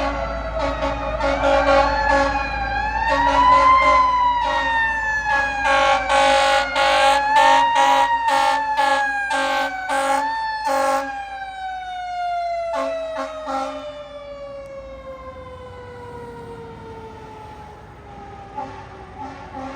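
Fire truck siren winding up and down in pitch while a steady horn tone sounds with short blasts in the middle; from about twelve seconds in the horn stops and the siren winds down in one long falling tone that fades.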